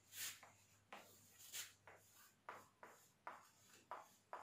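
Dry-erase marker faintly squeaking and scratching on a whiteboard as letters are written, a series of short separate strokes.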